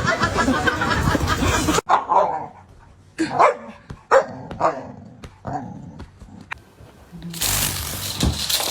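A dog gives about four short barks, spaced roughly half a second to a second apart. Louder, busier sound fills the start and the end.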